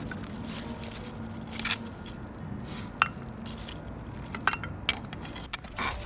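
Spent lumps of charcoal clinking as metal fire tongs pick them from the ash bed and drop them into a metal charcoal pot to be saved. There are several sharp clinks at irregular intervals, the loudest about halfway through.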